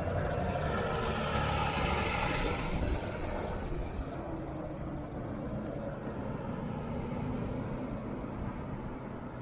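Road traffic: a large vehicle goes by in the first three seconds, over a steady low rumble that continues after it fades.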